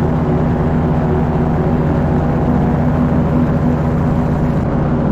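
Paramotor engine and propeller running steadily in flight: a loud, even drone that holds one pitch.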